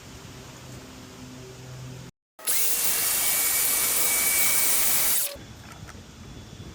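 DeWalt 18-volt cordless circular saw with an ultra-fine 60-tooth blade running at full speed through sheet goods for about three seconds, with a steady high whine over a loud rush. It starts and stops abruptly about two and five seconds in. Before it there is a faint low hum.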